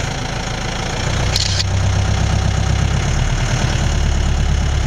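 Safari jeep's engine idling with a steady low rumble that grows louder about three seconds in. A brief hiss about a second and a half in.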